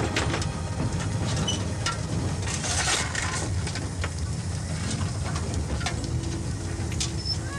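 A narrow-gauge railway carriage on the move: a steady low running rumble with irregular knocks and rattles.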